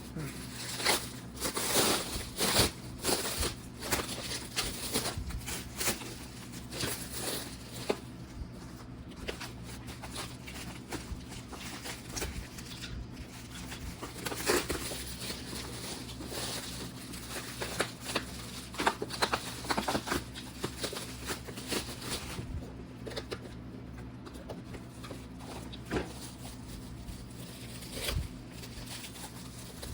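Plastic bubble wrap and packaging rustling and crinkling in irregular bursts as it is unwrapped by hand, busiest in the first several seconds and again around the middle.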